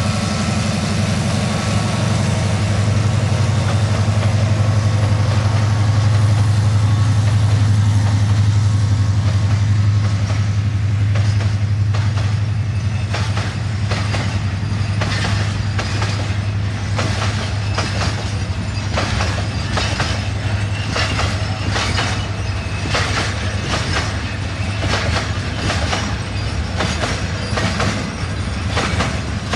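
Diesel locomotive engine running as it passes, its low drone fading over the first ten seconds. Then a freight train of bogie oil tank wagons rolls by with a steady clickety-clack of wheels over the rail joints.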